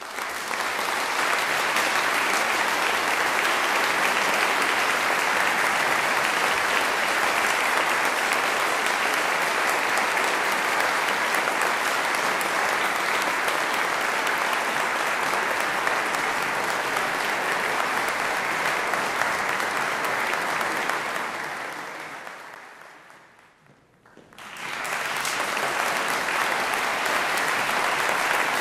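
Concert audience applauding steadily. Near the end the applause fades away, then starts again at full strength about two seconds later.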